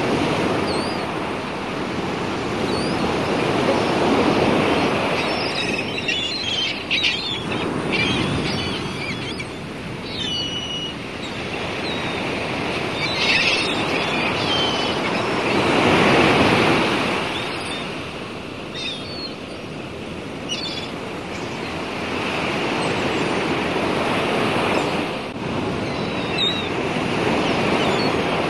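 Sea water rushing and breaking, swelling and fading in slow surges, with short high chirps scattered over it.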